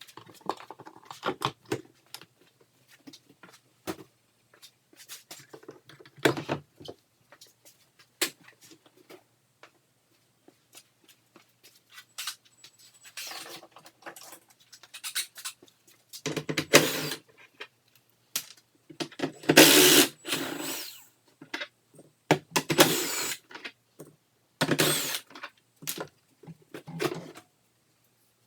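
Scattered clicks, knocks and plastic handling noise from taking the seat and plastic covers off a Sea-Doo personal watercraft. In the second half come several louder, noisy bursts of about a second each.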